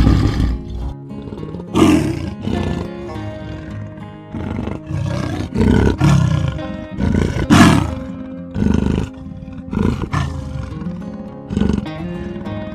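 Background music with a string of loud animal calls that sound like roars, about ten of them, each lasting under a second.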